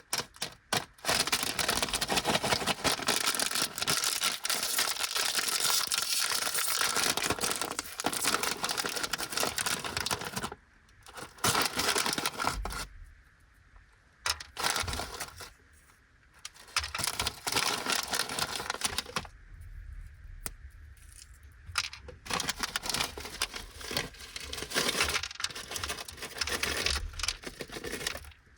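Plastic snack bags of Anpanman vegetable karintou being handled, crinkled and torn open, a dense crackling rustle. It drops to quiet pauses a few times in the middle.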